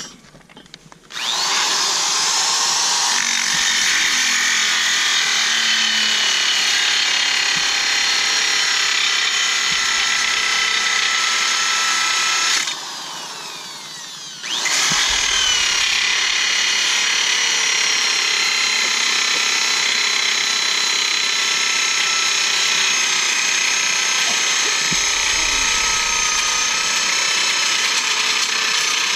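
Angle grinder with a cutoff wheel cutting through a car's steel coil spring, shortening it to lower the car. A loud, steady high whine starts about a second in, drops away for about two seconds a little before halfway, then picks up again and keeps going.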